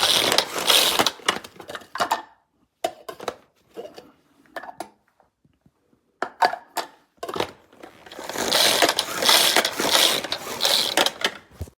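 Pull-cord manual food chopper being pulled repeatedly: whirring, ratcheting spins of the blades chopping vegetables, in bursts, with scattered clicks and knocks between runs of pulls.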